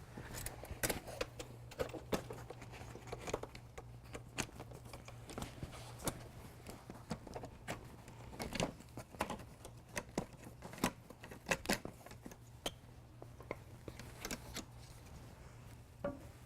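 Irregular clicks, knocks and rattles of folding canoe frame parts being handled and taken apart, over a steady low hum.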